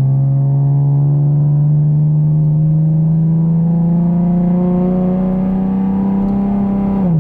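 2015 Chevrolet Camaro engine accelerating from a start in third gear, its note climbing slowly and steadily, then dropping suddenly near the end. The slow climb comes from pulling away in too high a gear.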